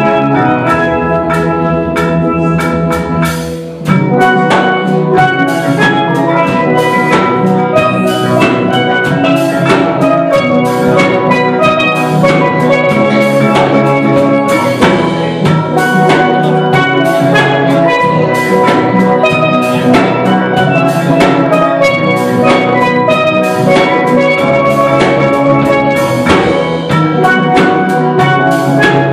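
Steel pan ensemble playing a rhythmic tune, many pans struck with mallets at once over a low bass line. The sound dips briefly about four seconds in, then the full band comes back in sharply.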